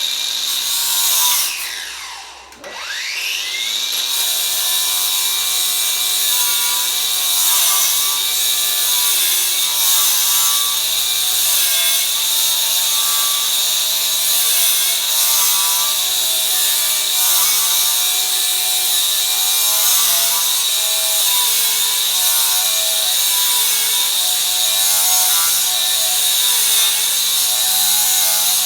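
Hyper Tough 20V cordless angle grinder with a 60 grit flap disc grinding old paint off a stair railing. About a second and a half in, its motor whine winds down; it rises again a second or so later, then runs steadily, the pitch dipping briefly again and again as the disc is pressed into the work.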